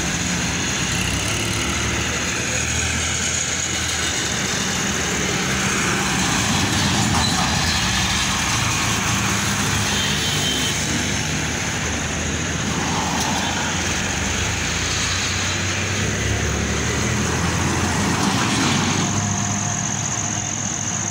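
Heavy road traffic passing close by: trucks, a bus and a tractor pulling a trailer, their engines humming under continuous tyre and road noise that swells a little as each one goes past.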